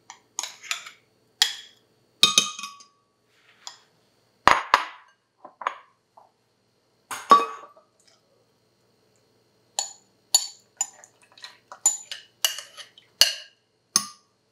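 Glass bowls clinking and knocking against a glass blender jar and the counter as milk is poured in: a string of short clinks with a quiet spell a little past halfway.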